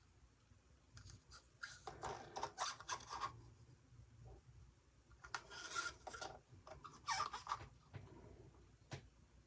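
Faint, intermittent rubbing and scraping in a few short bursts, with a click near the end: paint bottles and small cups being handled while paint is poured into a cup.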